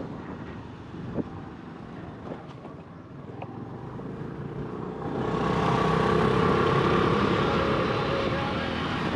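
Small motorcycle riding along a dirt road, its engine running steadily with road and wind noise; it gets louder about five seconds in.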